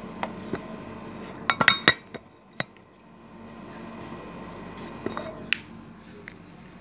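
Light clicks and metallic clinks of handling at a stainless-steel stove, with no talking. A quick cluster of clinks with a short ring comes about one and a half seconds in, a single click follows, and a few more knocks and one ringing clink come around five seconds in.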